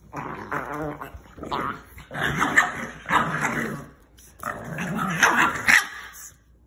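Two Boston Terrier puppies play-fighting, growling and yipping at each other in about five short bursts.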